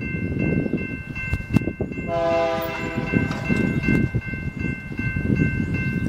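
Railroad crossing signal bell ringing repeatedly while the gates come down. About two seconds in, an approaching freight train's horn blows once for about a second. Low rumbling noise runs underneath.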